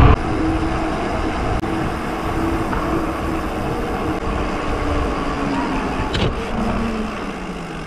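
Road traffic: a passing car engine hums steadily, its tone falling slowly near the end.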